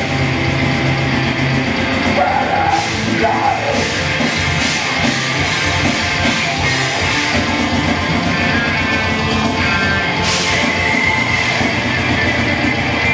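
Live heavy rock band playing loud and steady: electric guitars, bass guitar and a drum kit with cymbals, heard from among the audience.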